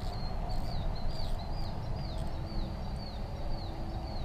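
A small animal's high chirps, repeating about two to three times a second and each dipping in pitch, over a low steady rumble.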